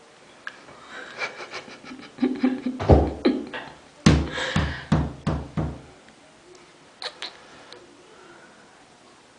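Knocking: a quick run of light taps, then about seven heavy, deep thumps over three seconds, and two faint clicks near the end.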